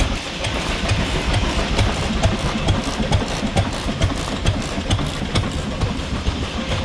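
An engine running steadily, with a low, rapid pulsing that repeats several times a second.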